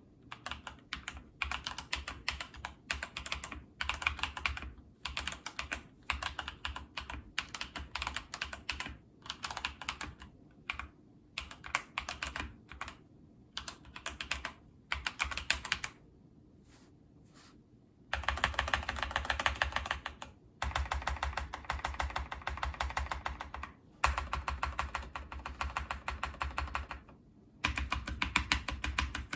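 E-YOOSO K620 tenkeyless mechanical keyboard, fitted with Ajazz Banana switches and tape and foam mods, being typed on. It starts in short bursts of keystrokes with brief pauses, stops for about two seconds midway, then runs on as faster, steadier typing to the end.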